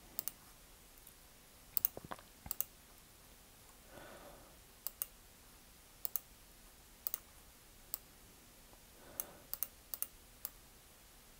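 Faint, sharp clicks of a computer mouse button, a dozen or more at irregular intervals and several in quick pairs, as items are selected and moved on screen.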